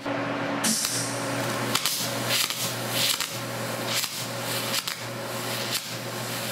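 MIG/MAG (GMAW) welding arc starting abruptly and running with a steady hiss broken by irregular crackling pops, over a low hum. The voltage is set too high for the wire feed speed, so the arc is starved of wire.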